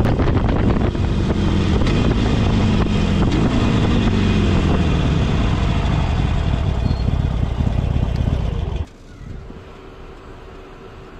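Harley-Davidson Iron 883 V-twin engine running with wind noise as the motorcycle slows to pull over, its pitch falling steadily. About nine seconds in the engine sound cuts off abruptly, leaving only a low, quiet hum.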